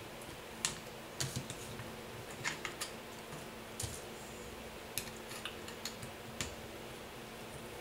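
A dozen or so small, irregular clicks and taps as a shotgun rail's metal barrel mounting clamp and spacer are handled and fitted onto a Mossberg 500 barrel, over a low steady hum.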